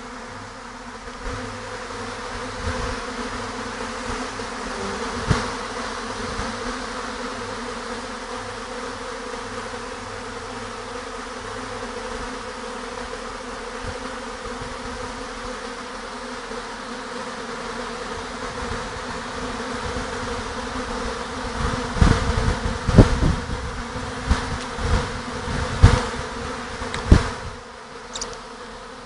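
A swarm of honeybees buzzing in a steady, dense hum. Several loud knocks come over the last several seconds.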